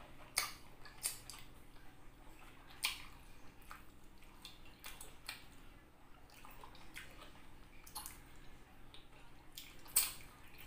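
A person chewing and smacking juicy rambutan flesh: scattered wet mouth clicks every second or so, the sharpest about ten seconds in, over a faint steady hum.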